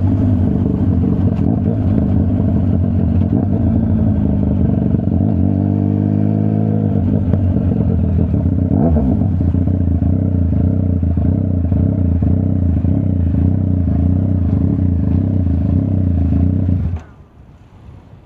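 Yamaha MT-09's three-cylinder CP3 engine with a full Akrapovič exhaust system running under way, its pitch falling and rising with the throttle. The engine sound cuts off abruptly about a second before the end, leaving only a faint background.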